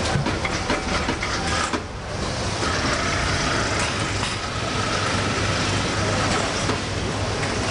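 A large automatic pet-food bag packing machine running, with steady mechanical noise and a low hum. A steady high whine comes in about two and a half seconds in, and there are scattered clicks from the mechanism.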